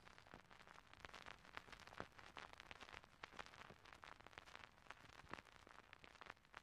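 Near silence with a faint, irregular crackle.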